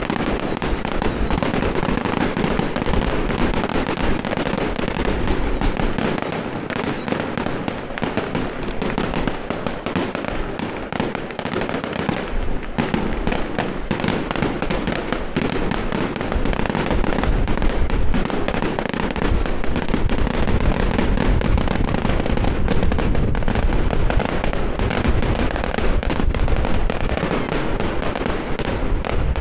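A dense, unbroken barrage of firecrackers and fireworks: rapid crackling bangs packed too closely to count, easing off slightly for a few seconds before the middle.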